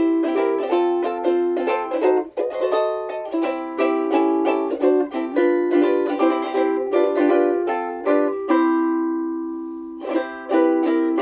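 Seilen SLVS-450s soprano ukulele, with a Sitka spruce top and Indian rosewood back and sides, played solo as a run of plucked notes and chords. A chord is left ringing and fading for about a second and a half before the playing picks up again near the end.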